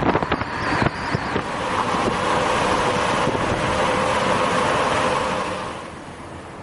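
Car driving on a road: steady tyre and wind rush after a few sharp clicks at the start, dropping away shortly before the end.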